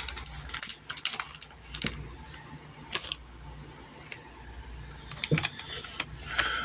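Scattered light clicks and taps of food being handled at a kitchen counter, over a steady low hum, with a few quicker clicks near the end.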